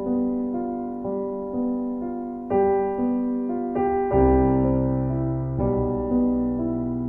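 Slow, gentle solo piano music: soft chords and melody notes struck about every half second and left to ring out, with a deeper bass note coming in about four seconds in.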